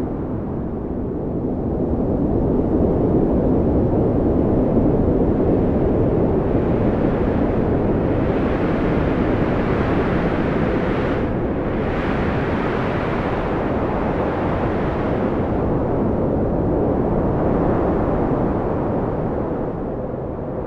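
Strong wind blowing with a steady deep rumble. It swells into a stronger, hissier gust through the middle, easing briefly partway through the gust.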